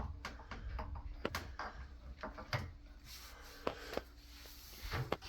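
Scattered light clicks and knocks of hands handling equipment, irregular and of varying strength, with a faint hiss in the middle.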